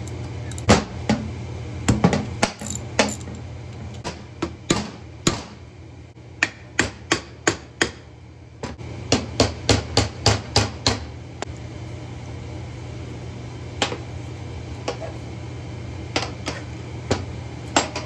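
Hammer tapping repeatedly on a Yanmar 1500 tractor's front-axle portal housing, working its cover loose: scattered sharp metal strikes and short quick runs of about three to four a second, over a steady low hum.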